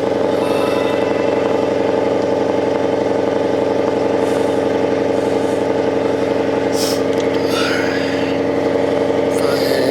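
Ford Mustang GT V8 idling steadily just after a cold first start, having quieted down from its initial high idle.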